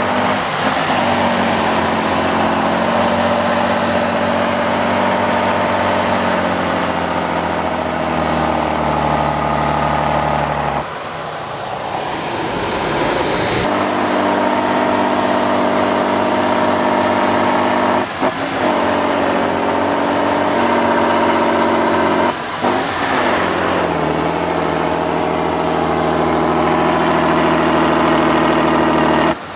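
Competition trial truck's diesel engine working hard at high revs while the truck climbs and tips over a steep bank, belching black smoke. The revs hold steady for long stretches and dip briefly three times, about a third of the way in, past halfway, and again a few seconds later, each time picking up again.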